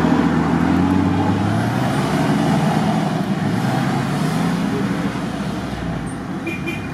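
Off-road SUV engine working under load as the vehicle drives through deep muddy ruts. Its note rises and falls with the throttle and grows fainter as it pulls away.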